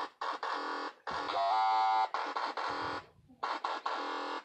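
Electronic music with a buzzy synthesizer sound, playing in three stretches broken by short silences.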